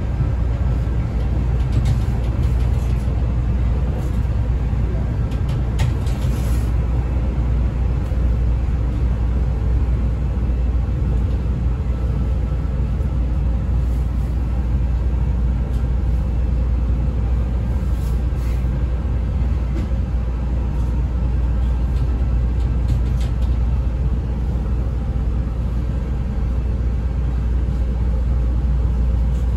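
Inside a CTA 5000-series rapid transit car under way: the steady low rumble of the train running on the rails, with a few faint clicks along the way.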